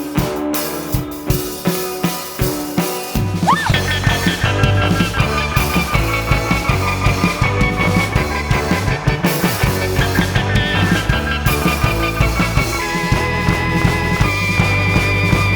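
Rock band playing an instrumental passage of an indie rock song: a sparser drum beat for about the first three seconds, then the full band comes in, louder, with heavy bass and sustained chords over the drums.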